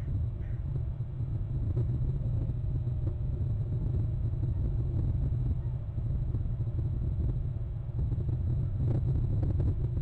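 Steady low rumble with a fainter hiss above it, unchanging throughout.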